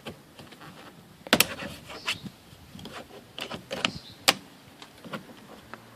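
Plastic door trim panel being pried and pulled off its clip pins: scattered plastic clicks and knocks, with two sharp snaps about one and a half and four seconds in as clips let go.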